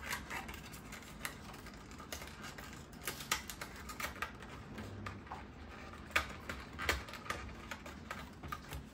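Cardboard and paper packaging being handled: irregular light clicks, taps and rustles as inserts are lifted out of a cardboard box compartment, with a few sharper clicks around three seconds in and again near six and seven seconds.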